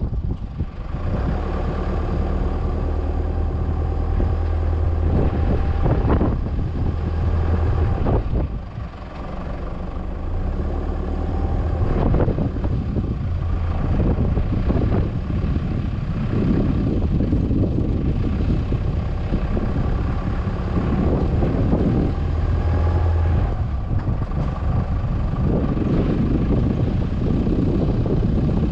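Four-wheel-drive vehicle towing a trailer, its engine running steadily as it drives along a sandy dirt track, with a few knocks and rattles over bumps.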